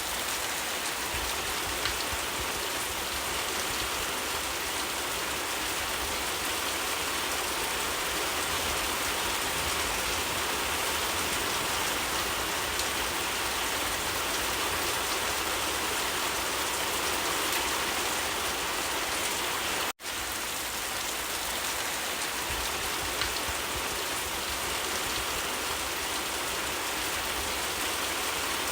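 Steady rain falling, an even hiss of rain on surfaces, broken once by a split-second dropout about twenty seconds in.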